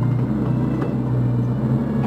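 CAT 304 mini excavator's diesel engine running steadily under load, a low even drone.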